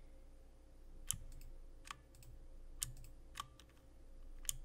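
About six sharp, short clicks of a computer mouse at irregular intervals, as tracks are selected and merged in the software.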